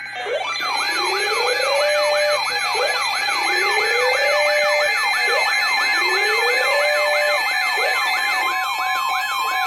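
Emergency alert attention alarm made of several electronic siren tones layered together. A fast yelp sweeps up and down about three times a second over a slow wail that rises three times, about every two and a half seconds, with steady high tones beneath. A steady beep tone joins near the end. It is the alarm that announces a severe thunderstorm warning broadcast.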